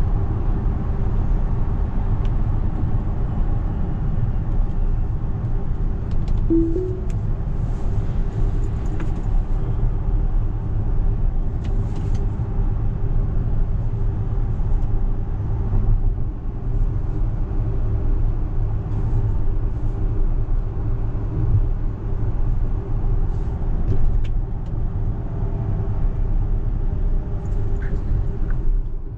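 In-cabin road noise of a Tesla Model X 100D electric SUV driving along: a steady low rumble of tyres on the road with a faint steady hum, and no engine sound. A short two-note chime sounds about six seconds in.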